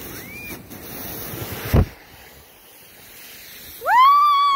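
A snow tube sliding down a snow run: a rushing hiss of the tube over snow with wind on the microphone, and one sharp thump about two seconds in. Near the end comes a high-pitched squeal held about a second, a girl screaming on the ride.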